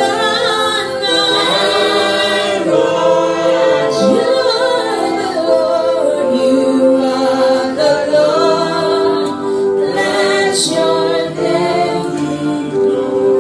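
A choir of voices singing a gospel worship song in harmony, with long held notes in the second half.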